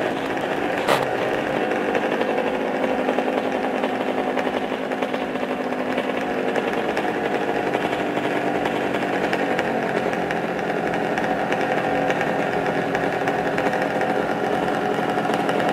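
Motorcycle engines running continuously inside a wall-of-death drum, a dense engine drone, with one sharp knock about a second in.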